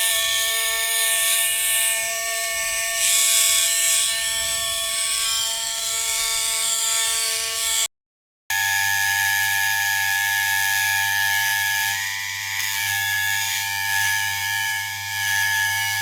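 Electric shaver running with a steady buzz. It cuts off about eight seconds in and, after a brief silence, starts again with a deeper hum.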